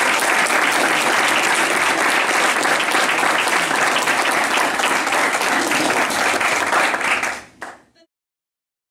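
Audience applauding, a dense steady clatter of many hands clapping, which fades out about seven and a half seconds in.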